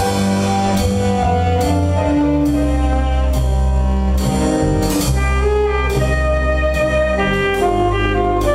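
Instrumental music with a steady beat: a held bass line under a sustained melody, with a percussive hit a little more than once a second.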